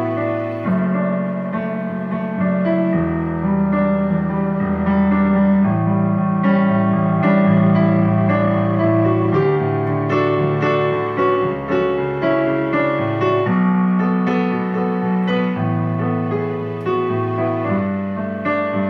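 Roland digital piano played in a slow piece, with low notes held under a melody line.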